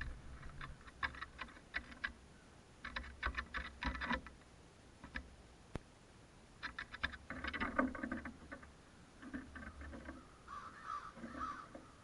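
A crow's beak pecking at fish snacks: irregular clusters of light clicks and taps, with a denser stretch of tapping and rustling about two thirds of the way in.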